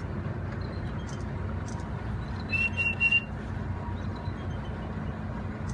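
Steady low hum of the boat's idling engine, with one short, high, steady whistle about two and a half seconds in, joined by a few sharp clicks.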